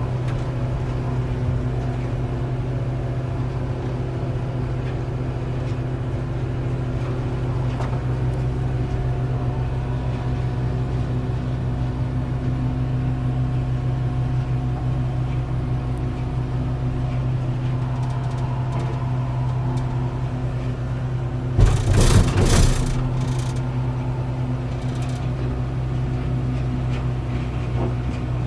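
Komatsu BR120T mobile crusher running under load, a deep, steady rumble as it pulverizes wood fed in by a grapple. A short burst of loud cracking and crunching comes about 22 seconds in.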